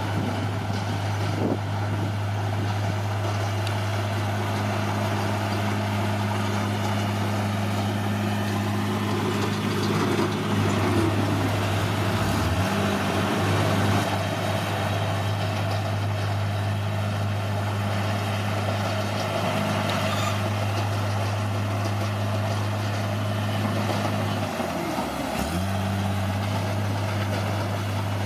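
Bulldozer's diesel engine running steadily, its pitch dipping briefly twice, about twelve seconds in and near the end.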